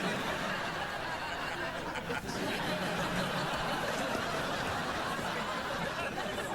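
Studio audience laughing steadily, a sitcom laugh track over a silent comic bit.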